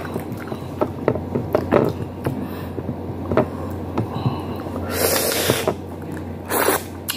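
A man eating chicken with his hands, close to the microphone: chewing, lip-smacking and wet mouth sounds in a run of short clicks, with a loud breath about five seconds in and a shorter one near the end.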